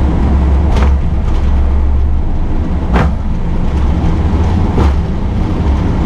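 Airbus A320 cockpit during the takeoff roll at full TOGA thrust: a loud, steady low rumble of engines and wheels on the runway. Three sharp thumps come about two seconds apart as the gear runs over the runway surface.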